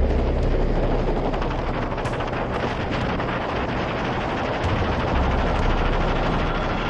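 Rushing slipstream wind battering the camera microphone with rapid, irregular crackling buffets, over the steady low drone of the aircraft's engine.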